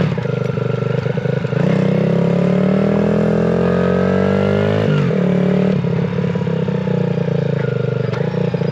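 Pit bike's small single-cylinder engine under way, climbing in pitch for about three seconds as it pulls, then dropping sharply about five seconds in and running steady.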